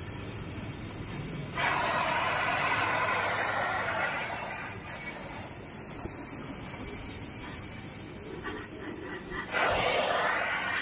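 Gas welding torch hissing steadily as its flame heats a steel joint, swelling louder for a couple of seconds about one and a half seconds in and again near the end.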